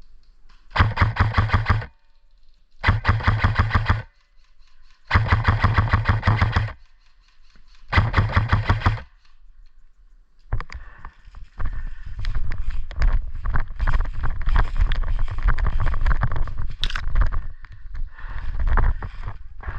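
Airsoft rifle firing four short full-auto bursts about a second apart, each a rapid even string of shots. After that comes a long stretch of irregular rustling and knocking.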